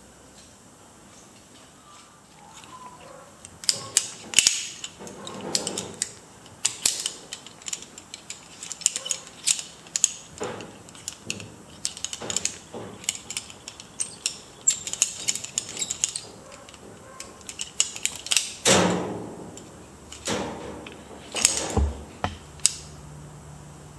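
Metal carabiners and a figure-8 descender clicking and clinking against each other as the rig is unclipped and reclipped, with the rope being handled. There is a quick run of sharp clicks, with a few louder knocks near the end.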